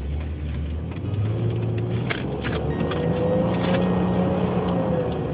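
Mercedes-Benz W124 300CE engine pulling away, its revs climbing from about a second in and easing off again near the end.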